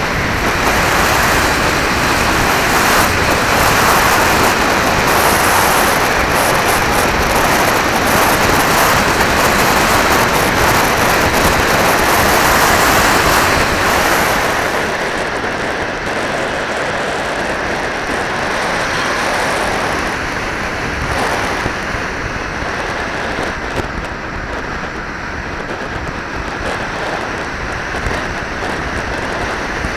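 Air rushing over an onboard camera's microphone on a radio-control glider in flight, a steady hiss. It is loudest in the first half, then eases and turns duller about halfway through.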